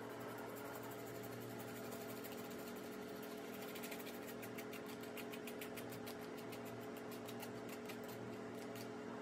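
Lemon halves squeezed by hand over a plastic strainer: a rapid run of soft crackling ticks, denser from about four seconds in, over a steady low electrical hum.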